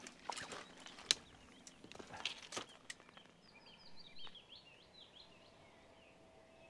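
A few sharp knocks and rustles of handling in the first three seconds, the loudest about a second in. Then a songbird sings a quick run of short, falling notes.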